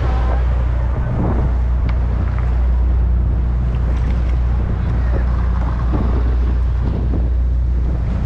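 Fishing boat's engine running with a steady low drone, with wind buffeting the microphone.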